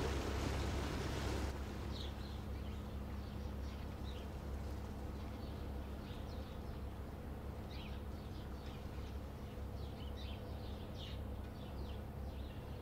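Passing cargo ship's diesel engine giving a steady low drone, with a louder rush of noise that stops about a second and a half in. From about two seconds in, small birds chirp repeatedly in short calls.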